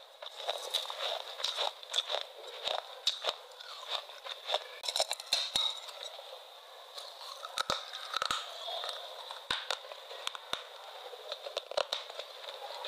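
Close-miked crisp crunching and crackling of a person biting and chewing a hard, brittle food, a quick run of sharp snaps that is densest in the first half and thins out later. A faint steady high whine sits underneath.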